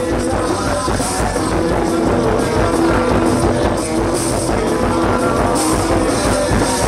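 A live band playing rock music, loud and dense, over a steady drum beat.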